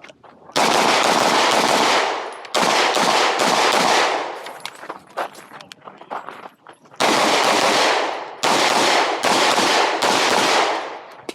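Glock 19 9mm pistol firing fast strings of shots from the start beep, beginning about half a second in. Scattered quieter clicks fill a lull of about two seconds midway before more rapid strings of shots.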